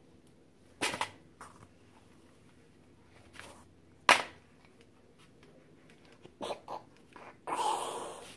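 Hard plastic clicks and knocks from hollow plastic egg halves used as a kinetic-sand mold being handled: a few single sharp clicks, the loudest about four seconds in, then a run of smaller taps and a brief rustle near the end.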